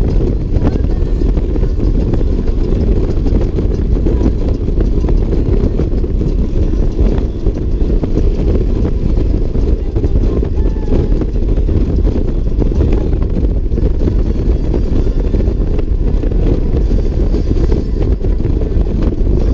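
Motorcycle cruising at highway speed, heard from a camera mounted on the bike: a steady, loud rush of wind and engine noise.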